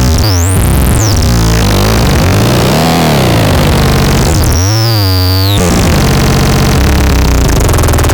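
UFOFON electronic sound generator making loud, noisy synthesized tones that sweep up and down in pitch. A high whistle swoops up and down about half a second in, and another high tone glides down at about the five-second mark.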